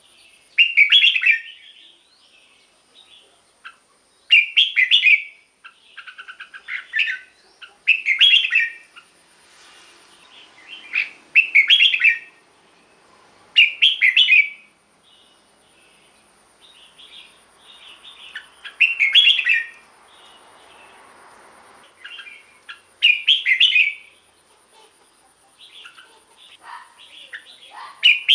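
Red-whiskered bulbul singing: loud, short song phrases repeated every two to five seconds, about nine of them, with softer chattering notes in between.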